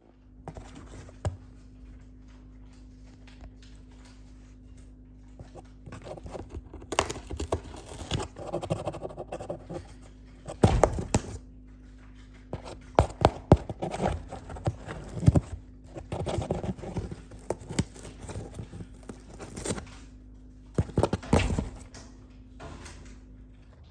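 Irregular knocks, taps and clicks, some in quick clusters and a few sharper and louder, over a steady low hum.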